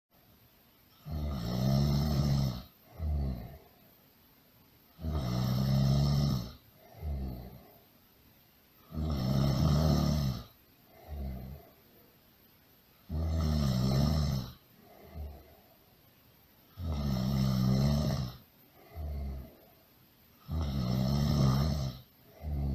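Snoring, really loud, in a steady rhythm: a long snore followed by a shorter, quieter one, repeating about every four seconds, six times.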